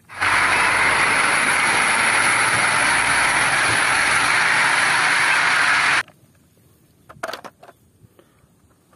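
Large diesel tanker truck engine running hard under heavy load, belching black smoke, as a loud dense roar that cuts off suddenly about six seconds in.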